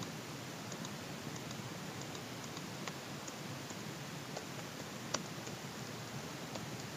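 Computer keyboard keystrokes: scattered light clicks, one sharper about five seconds in, over a steady hiss.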